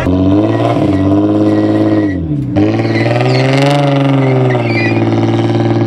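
Infiniti G-series coupe's V6 engine revved hard and held at high revs, with a brief dip about two seconds in before climbing straight back up and holding, in a burnout attempt.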